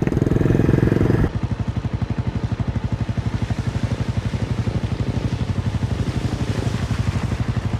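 Motorcycle engine running: it eases off a little over a second in and then runs steadily at low revs, each firing pulse distinct.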